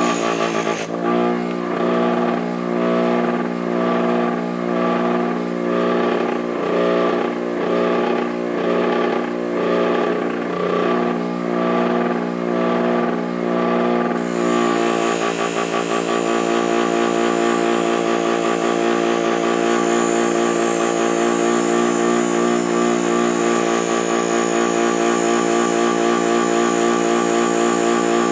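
Bench grinder with a buffing wheel running steadily under load as a stainless steel molding is buffed with coarse compound. Through the first half the sound swells and fades in an even rhythm of strokes across the wheel. About halfway it becomes a steady, continuous buffing with more hiss.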